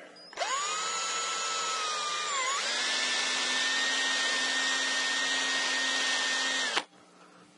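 Cordless drill drilling a nail hole through a cedar shingle at the corner. The motor whines steadily, its pitch dips briefly partway through and then settles higher, and it stops suddenly near the end.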